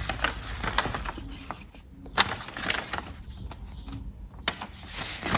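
A folded paper instruction leaflet and warranty card being unfolded and handled, with irregular crisp rustles and sharp paper snaps.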